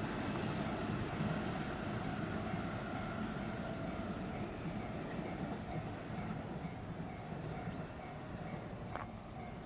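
An electric train runs past on the line, its rumble fading steadily as it moves away.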